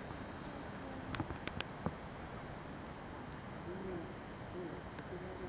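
Insects, crickets among them, chirring steadily in thin high tones, with a few faint sharp clicks about a second in and a faint low call toward the end.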